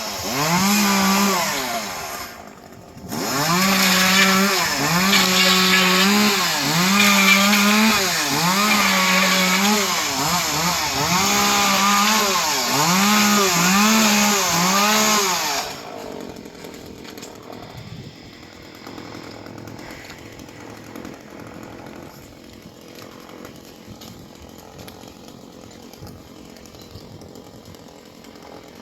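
Stihl chainsaw revving up and down again and again while cutting palm fronds, with a brief drop about two and a half seconds in. About sixteen seconds in it stops, leaving a much quieter background.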